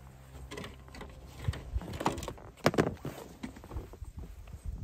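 Handling noise from an angler in a float tube: irregular knocks, clicks and rustles as he moves and works his gear, loudest in the middle.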